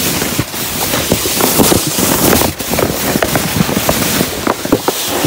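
A sled sliding down a snowy slope: a continuous scraping hiss of snow under the sled, broken by many short crackles and crunches as it hits lumps of snow.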